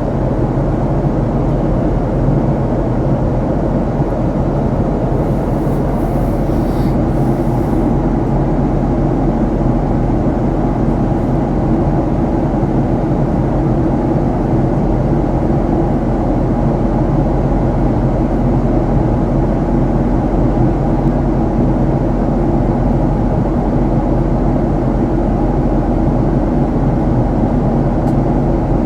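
Steady cabin noise of a Boeing 737 MAX under way: the drone of its CFM LEAP-1B jet engines and airflow, heard from inside the passenger cabin, even and unchanging.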